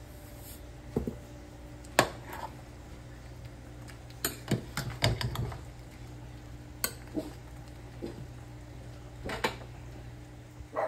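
Metal ladle clinking and scraping against a stainless steel stockpot while stirring simmering soup: a string of separate knocks, bunched around the middle, over a low steady hum.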